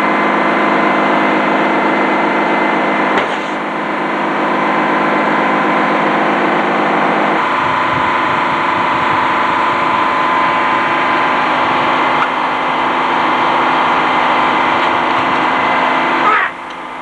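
Antique Frick sawmill running: a loud, steady mechanical drone of the mill's drive and spinning saw blade. The sound changes character about seven seconds in, and it drops off sharply near the end.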